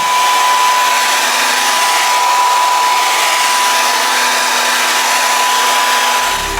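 Hair dryer running steadily: an even rushing of air with a constant high-pitched whine, cutting off near the end.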